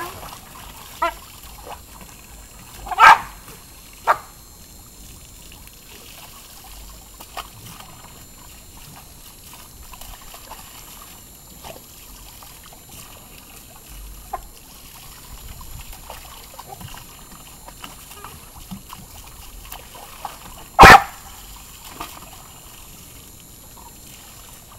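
A dog barking, two loud single barks, one about three seconds in and one about four seconds before the end, with a few fainter yips early on, over the steady splash of hose water and paws in a plastic wading pool.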